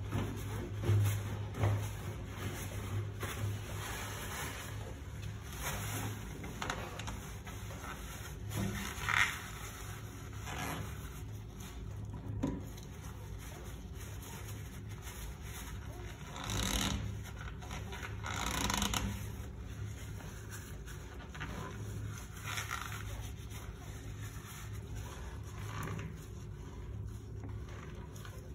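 Cloth being rubbed over a chrome Sloan flushometer valve: intermittent wiping and scraping with a few light knocks, over a steady low hum.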